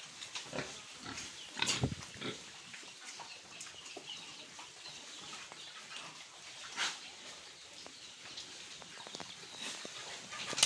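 Pigs grunting in a pen, with a few short, louder noises, the loudest about two seconds in.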